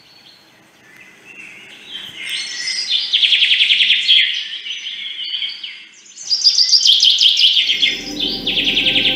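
Birdsong: chirps and fast, high trills of rapidly repeated notes in two loud spells, with a low hum coming in near the end.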